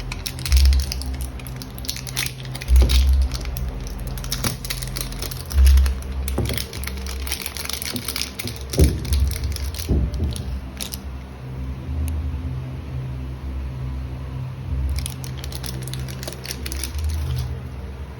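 Plastic packaging crinkling, crackling and tearing in two spells, the first long and the second shorter near the end, as a supplement tub is unwrapped. Underneath are a steady low hum and a few heavy handling thumps.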